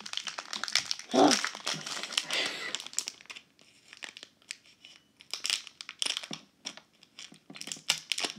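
Foil surprise-bag wrapper crinkling and crackling as it is handled and cut at with scissors: a dense run of crackles for about three seconds, then sparser crinkles and clicks as the cut is worked.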